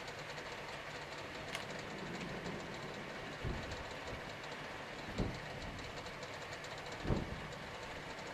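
Steady rushing wind noise on the microphone, with three low buffets from gusts in the second half.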